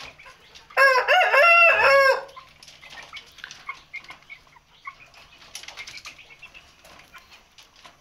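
A rooster crows once, a loud call of about a second and a half starting about a second in. After it come faint clicks, as of a chicken pecking feed from a bowl.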